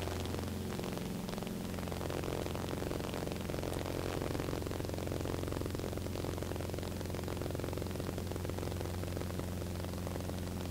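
1960 Mooney M20A's four-cylinder piston engine and propeller running steadily, heard inside the cabin as an even, unbroken drone.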